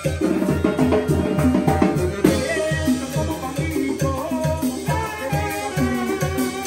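A live Mexican banda brass band playing: trumpets and trombones over a tuba bass pulsing steadily on the beat, with timbales and other percussion.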